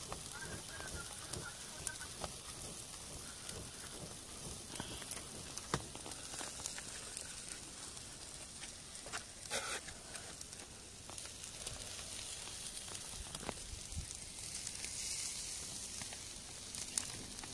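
Chicken skewers sizzling over glowing charcoal, a steady hiss with scattered small crackles and pops.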